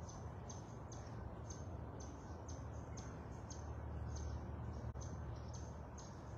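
Short, high-pitched chirps repeating about twice a second, faint over a steady low rumble.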